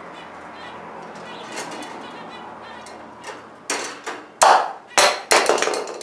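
A budgerigar chattering softly, then, from about two thirds of the way in, a quick string of loud, sharp clattering knocks as a plastic toy bird is knocked about against the wire cage.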